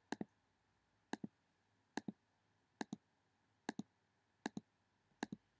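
Regular clicking: a pair of quick, sharp clicks repeating evenly a little faster than once a second.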